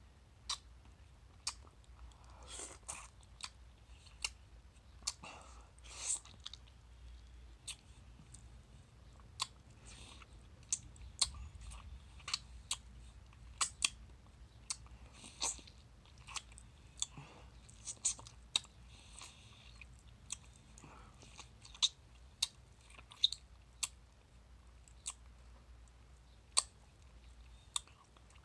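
Close-up mouth sounds of eating a soft, ripe mango: wet sucking, smacking and chewing on the fibrous flesh, with many sharp wet clicks at irregular intervals and a few short slurps.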